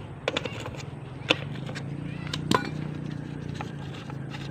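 Hand tools working on bolts of a manual gearbox casing: a few separate sharp clicks and taps, the sharpest about a second in, over a steady low hum.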